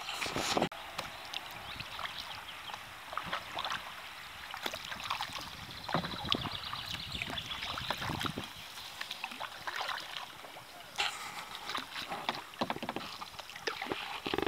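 Kayak paddle strokes on a slow river: the blades dipping and splashing, with water dripping off them in many small ticks. A louder splash comes at the very start and again about eleven seconds in.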